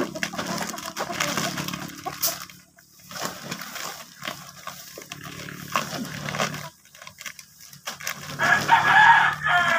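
A rooster crows once near the end, a long call that is the loudest sound. Underneath, plastic bags and food packets rustle and crinkle as they are handled.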